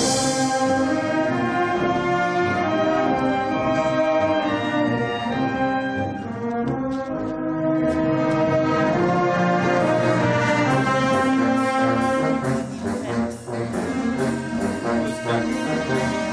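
Concert wind band playing, with brass holding sustained chords and a steady beat coming in during the second half.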